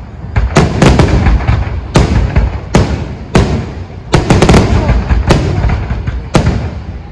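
Aerial fireworks display: a rapid, uneven series of sharp bangs, several fired in quick clusters, over a continuous low rumble of shell bursts.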